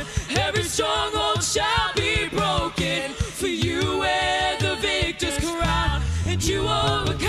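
Contemporary worship music: sung vocals carrying a melody over a band, with drum hits throughout and a deep bass part that grows loud about six seconds in.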